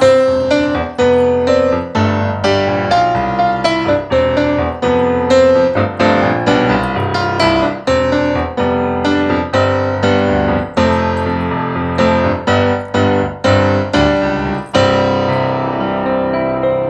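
Roland digital stage piano played solo: a steady run of struck chords, with the last chord ringing out and fading near the end.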